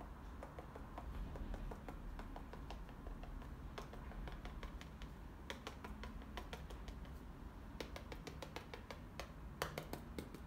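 Sponge dauber dabbing acrylic paint onto a canvas: faint, irregular light taps, several a second.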